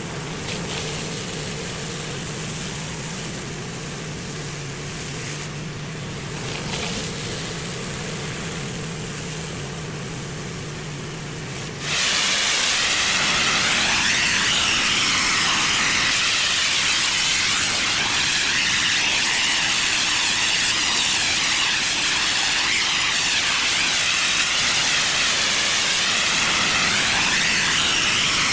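Pressure washer at work on a driveway: a steady machine hum under a hiss, then about twelve seconds in a sudden, much louder hiss of high-pressure water spray that holds steady.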